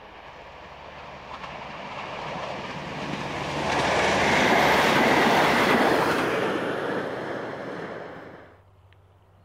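A V/Line diesel railcar approaches and passes at speed: engine hum and wheel-on-rail noise build up, are loudest as it goes by, then fade and drop away sharply near the end.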